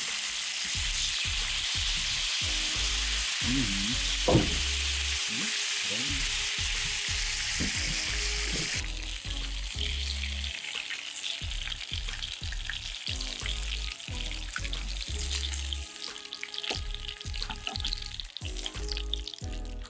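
Small dace frying in hot oil in a pan: a steady sizzle that turns a little quieter and more crackly after about nine seconds, with scrapes of a fork and spatula as the fish are turned. One sharp knock of the utensil against the pan about four seconds in.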